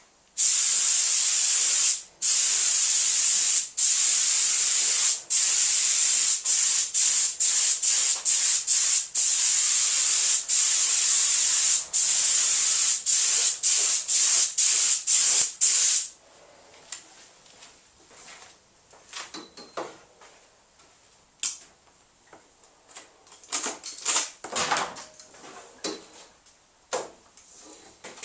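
Paint being sprayed onto a van's sliding door in long hissing passes, cut by many brief pauses where the spray stops between strokes. It stops about halfway through, and scattered faint clicks and knocks follow.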